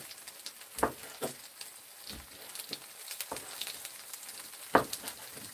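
Kitchen knife cutting squid on a wooden cutting board: about five separate knocks of the blade on the board, the loudest near the end. Under them is a faint sizzle of green onions frying in oil in a pan.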